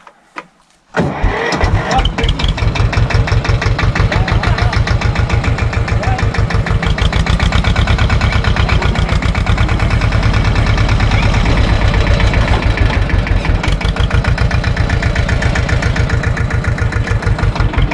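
A Same tractor's diesel engine starts about a second in, then runs steadily with a fast, even pulsing beat.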